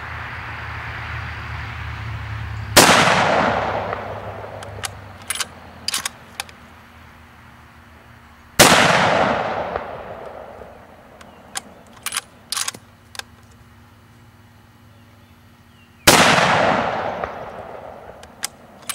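Three rifle shots from a Remington 700 bolt-action in .30-06, about six to seven seconds apart, each a sharp crack followed by a long fading echo. Between shots the bolt is worked, a quick run of metallic clicks as the next round is chambered.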